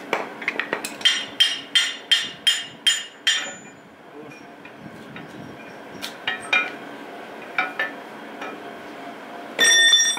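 Hammer blows on the steel of a D115 tractor engine block: a quick run of about seven ringing strikes, then a few scattered taps. Near the end comes a louder metal clang that rings for about half a second.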